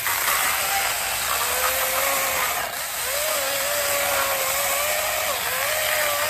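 Wild Badger 20-volt cordless electric chainsaw running under load, its 12-inch chain cutting through a 5–6 inch firewood log. The motor's steady whine dips in pitch a few times as the chain bites into the wood.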